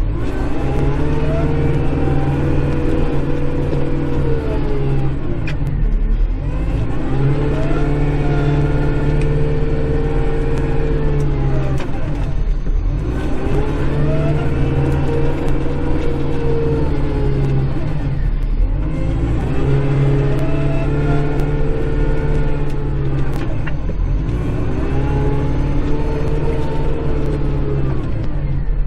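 Kubota Grand L5740 tractor's diesel engine heard from inside the cab, its speed rising and falling over and over, about every five to six seconds, as the tractor works back and forth clearing snow with a front plow blade.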